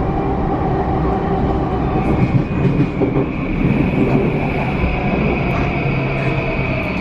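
Interior running sound of a JR E235-0 series train: the SiC VVVF inverter's steady electronic hum, the 'microwave oven' sound, over wheel and track rumble. A high tone grows stronger about three seconds in.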